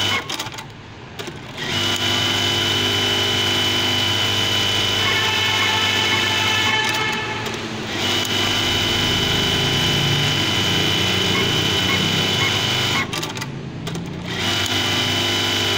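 Industrial buttonhole sewing machine running, a steady mechanical whine as it stitches. It stops briefly three times, near the start, about seven seconds in and about thirteen seconds in, between buttonholes.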